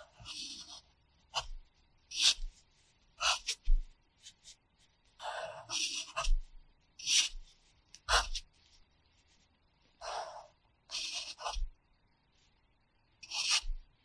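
Pencil writing hiragana on the paper of a practice workbook lying on a pad: short scratching strokes, one after another, with brief pauses between them.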